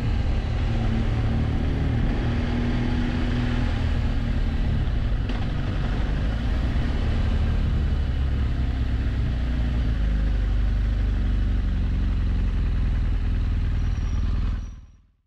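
Motorcycle engine running steadily while riding, with road noise. The sound fades out near the end.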